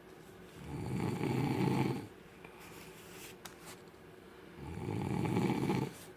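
A man snoring very loudly: two long, rattling snores about four seconds apart, each swelling up and then cutting off sharply.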